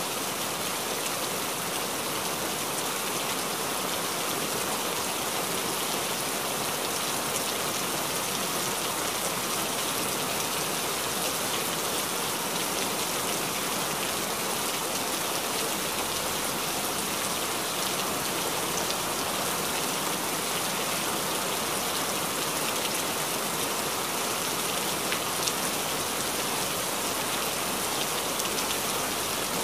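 Steady rain: an even hiss of falling drops that holds at one level throughout.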